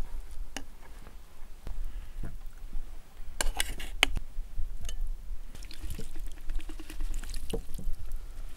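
A metal ladle clinks against the inside of a steel milk can, with a cluster of sharp clicks about halfway through, then khorkhog broth is poured and drips onto cooked vegetables in a bowl.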